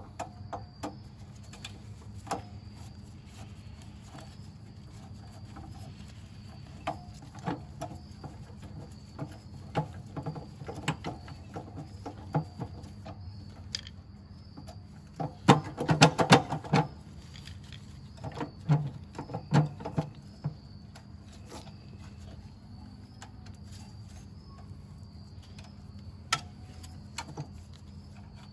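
Scattered clicks and clinks of a Torx screwdriver and small metal parts as a last screw is backed out and a sheet-metal heat shield is worked off a small engine, with a short burst of rattling clatter about halfway through.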